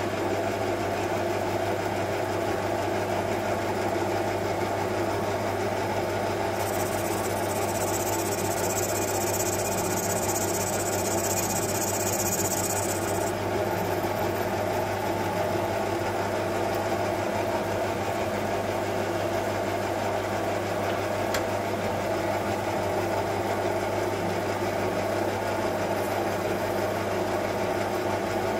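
Small metal lathe running steadily with its motor and spindle humming, turning a brass rod in a four-jaw chuck. A thin high hiss joins for about seven seconds starting about a quarter of the way in.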